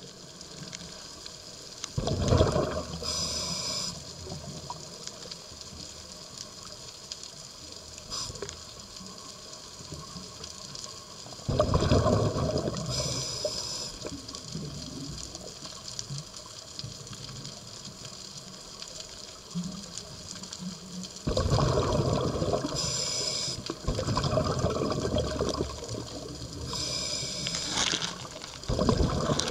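Scuba diver breathing through a regulator underwater: loud gushes of exhaled bubbles come every few to ten seconds, five times in all, each with a short high hiss from the regulator, over a faint steady underwater hiss.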